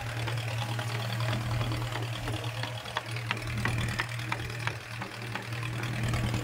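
Fishing boat's engine running steadily: a low, even drone with faint irregular ticks over it.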